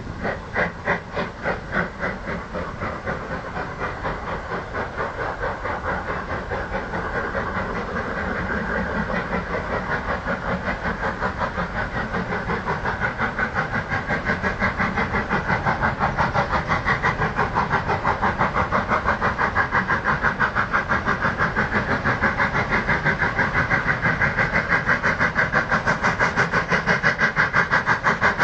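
Steam exhaust beats of the RSH 0-6-0 tank engine 7684 "Meaford No. 2" working hard up the 1-in-19 bank, a steady rhythmic chuffing that grows louder as the locomotive approaches.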